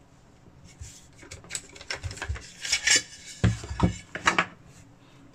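Light metallic clicks and clinks of a folding knife and screwdrivers being handled and set down on a table, a scattered run of small knocks, the loudest near the middle.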